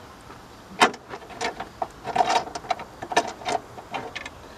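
Metal hood prop rod clanking and rattling against its clip and the radiator support as it is pushed down: one sharp knock a little under a second in, then a quick run of clicks and taps with a short metallic ring.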